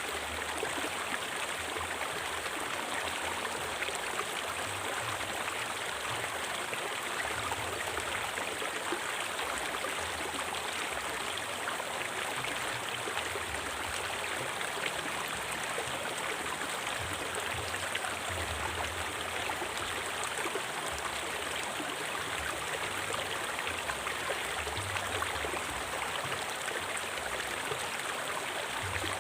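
River water flowing: a steady, unbroken rush of stream water.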